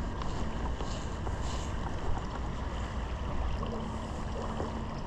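Steady rush of a shallow stream running over rocks, with wind buffeting the microphone.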